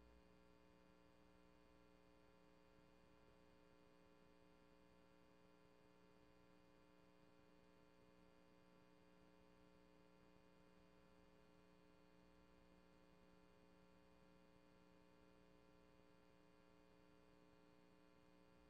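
Near silence: only a faint, steady electrical hum of many unchanging tones from the recording chain, with no sound from the meeting picked up.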